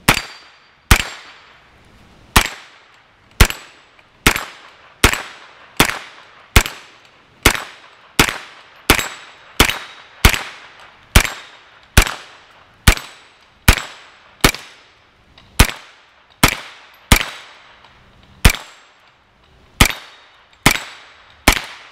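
Freedom Ordnance FX9 9mm carbine firing semi-automatic, about 28 single shots at a steady pace of roughly one a second, each crack trailing off briefly.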